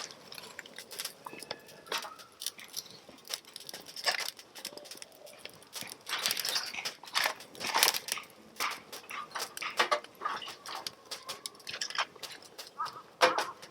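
Freshly lit cedar firewood and kindling burning, crackling with dense, irregular sharp pops and snaps.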